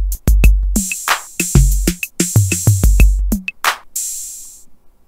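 Web-browser drum machine playing a programmed beat at 95 bpm: booming kick drum, snare and clap hits and hi-hats. The pattern stops about three-quarters of the way through, leaving one last hi-hat ringing out briefly.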